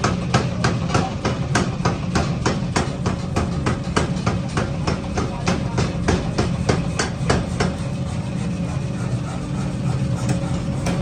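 Steady hum of a coal forge's electric air blower, with rapid, evenly spaced hammer blows on metal, about four a second, that stop about seven and a half seconds in.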